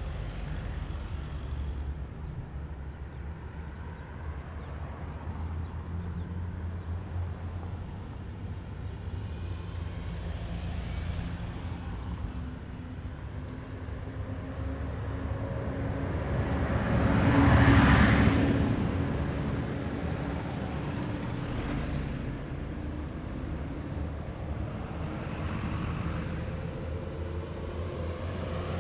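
Heavy military vehicles driving past, their engines a steady low rumble. One vehicle passes closest about two-thirds of the way through, swelling up and fading away again.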